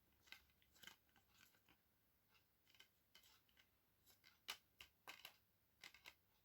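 Faint scattered clicks and taps of a plastic Blu-ray case being handled and opened in a search for the bonus disc, with a few louder clicks bunched near the end.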